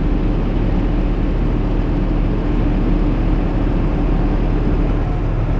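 Steady road noise inside a moving vehicle's cab on a wet highway: tyre hiss and a low engine and road rumble with a faint steady hum, while overtaking a semi-trailer truck.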